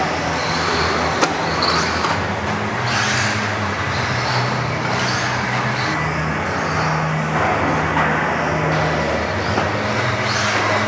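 Radio-controlled off-road cars running laps on a dirt track, their motors whining in short high-pitched rises and falls every second or two over a steady low hum.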